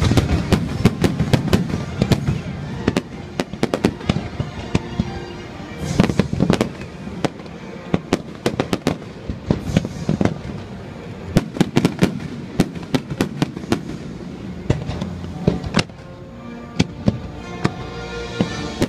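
Aerial fireworks going off in rapid succession: many sharp bangs and crackles close together, with music playing underneath.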